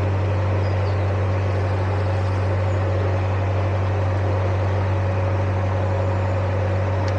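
Narrowboat diesel engine running steadily at cruising speed, a constant low hum.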